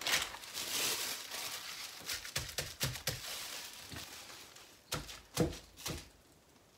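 Plastic bubble wrap crinkling and rustling as it is handled, loudest in the first second or so, with scattered small clicks and a couple of light knocks about five seconds in.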